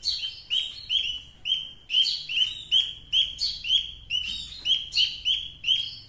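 Young birds nearly ready to fledge calling from their cage in a rapid, unbroken series of short high chirps, several a second. These are hungry begging calls during hand-feeding.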